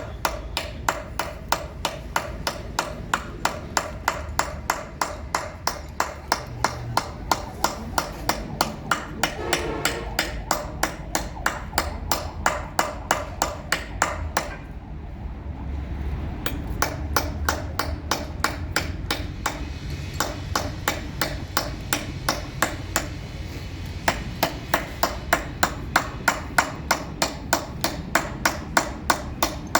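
Hammer tapping a steel chisel into marble or granite, a steady run of sharp strikes about three a second, with a brief pause about halfway through.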